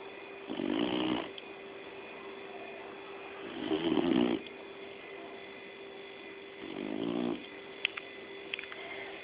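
Labrador retriever snoring: three snores, each under a second long, about three seconds apart, over a steady faint background hum. A couple of short clicks come near the end.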